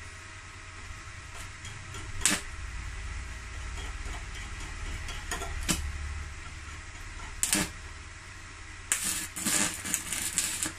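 Stick (MMA) welding arc from a Megatec mini inverter welder with a 3.2 mm electrode: a few sharp clicks, then about nine seconds in the arc catches and crackles and sputters in short bursts. The welder finds the arc still a bit weak at this current setting.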